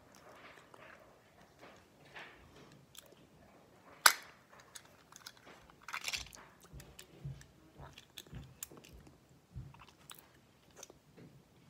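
Close mouth sounds of a girl eating a lollipop: sucking and lip-smacking on the candy. A single sharp click stands out about four seconds in, and a short clatter of clicks follows about two seconds later.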